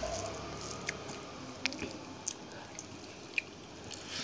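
Eating rice and katla fish curry by hand: faint, soft wet squishing as fingers mix the rice on the plate, then chewing, with a few small scattered clicks.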